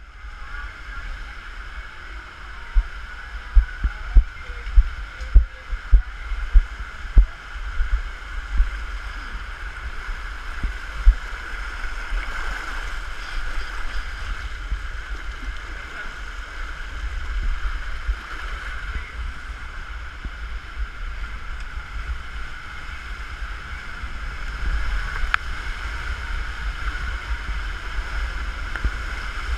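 Water rushing down a waterslide flume, a steady splashing hiss, with a run of loud low thumps against the head-mounted camera in the first several seconds. Near the end the rider is sliding through the water in the enclosed tube.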